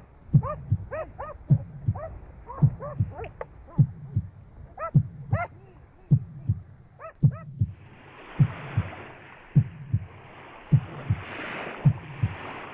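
Heartbeat: low double thumps about once a second. Over the first half, high arching squeaks repeat between the beats. About halfway through, a steady hiss comes in under the beats.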